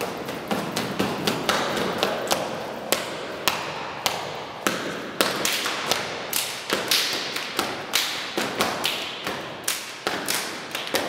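Stepping routine done by a group of dancers: sharp stomps and hand hits in a steady rhythm of about two a second, with no music, each one echoing off the bare concrete of a car park.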